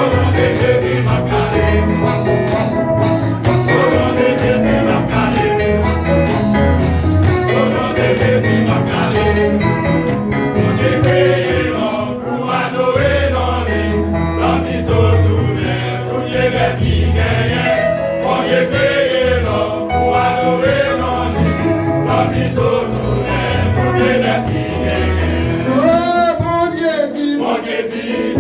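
A men's gospel vocal group singing together, backed by a live band with electric guitar, bass and drums.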